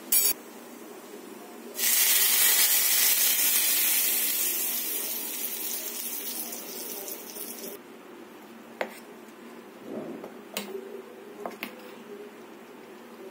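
Hot oil tempering with mustard seeds and dried red chillies poured onto coconut chutney, sizzling loudly from about two seconds in and dying away over the next several seconds. A few light clinks of a spoon against the steel bowl follow.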